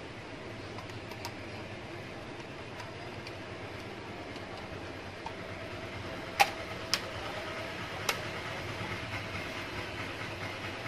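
Three sharp clicks, about six to eight seconds in, from a screwdriver and hands working on the plastic housing of a Canon imageRUNNER 2525 copier's fuser unit. A steady low background rumble runs underneath.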